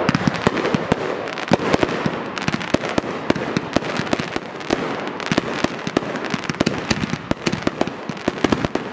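Consumer (Class C) aerial fireworks bursting overhead: a dense, unbroken run of sharp pops and crackles, many a second.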